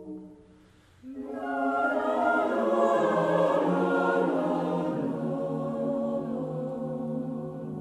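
A choir singing sustained a cappella chords. They fade almost away, then swell back in about a second in, with the low voices stepping down twice.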